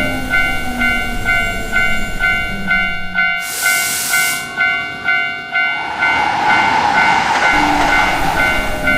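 Level crossing warning bell ringing over and over in a quick steady rhythm while a train runs by. A loud burst of hissing air comes in about three and a half seconds in and lasts about a second.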